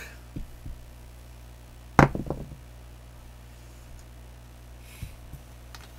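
Pair of dice thrown onto a felt craps table: one sharp knock about two seconds in as they land, then a few quick smaller clatters as they bounce and settle.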